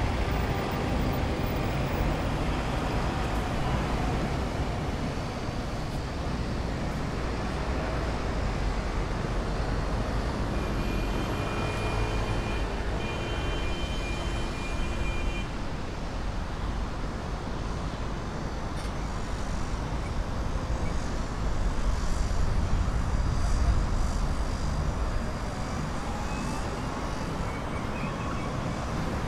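City street ambience: a steady rumble of road traffic, swelling louder a little after twenty seconds in. A short, steady high tone sounds for a few seconds near the middle.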